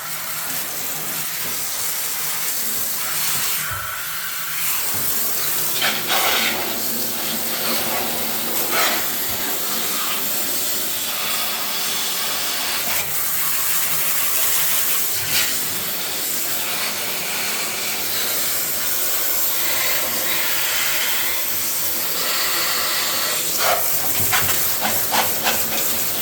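Steady loud hissing of a pressurised spray, with short louder bursts and a cluster of clicks near the end.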